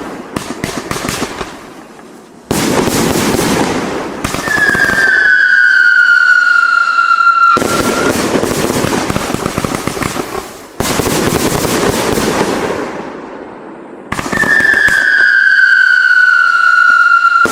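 A 115-shot firework cake of 25 and 30 mm calibre firing: rapid volleys of shots with dense crackling that start abruptly in three bursts. Twice a long whistle, each about three seconds, falls slightly in pitch over the shots.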